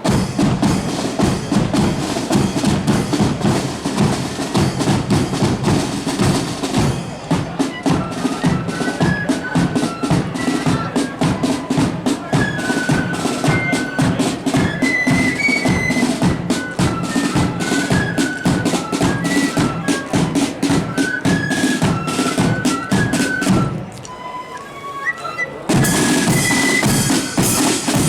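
Marching band playing, with bass and snare drums beating throughout. A high melody joins about eight seconds in. Near the end the drums drop out for about two seconds, leaving a few melody notes, before the full band comes back in.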